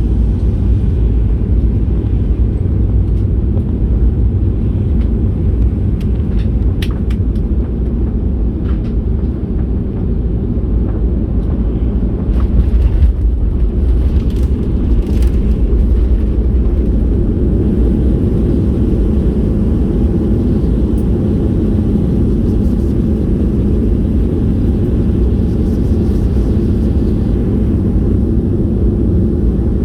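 Airliner cabin noise: a steady, loud low rumble from the engines and airframe, heard from inside the cabin, with a few faint clicks or rattles partway through.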